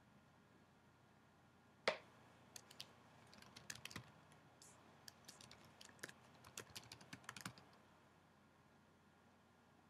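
A sharp click about two seconds in, then faint typing on a computer keyboard: a quick run of keystrokes lasting about five seconds.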